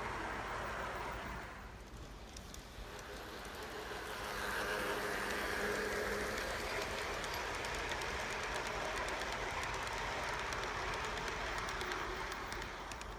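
Garden-scale model train rolling past on outdoor track: a steady whir with fine, regular clicking of the wheels over the rail joints. It dips briefly about two seconds in and is louder from about four seconds on.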